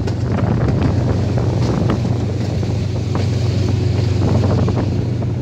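Diesel locomotive's engine running with a steady low hum. Wind buffets the microphone as the train moves, and there are faint scattered rattles.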